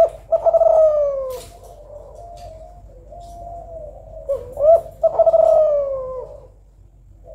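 Female Kelantan spotted dove (derkuku) cooing: two phrases, each a couple of short rising notes followed by one long coo that slides down in pitch, with softer, wavering coos in between. It is a female's call used to stir reluctant male doves into singing.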